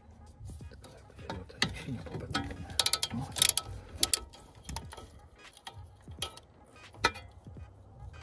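Ratchet wrench clicking in short runs, with metal tools clinking and knocking, while working a bolt on a car's front suspension; the busiest, loudest clicking comes about three to four seconds in.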